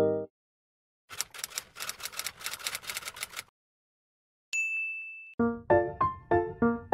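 Rapid typing clicks for about two seconds, then a single high bell ding that rings out and fades. A light plucked music track starts near the end.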